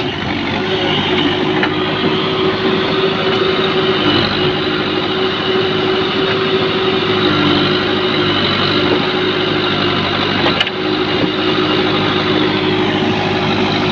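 JCB backhoe loader's diesel engine running steadily as its backhoe arm works, with one short knock about ten and a half seconds in.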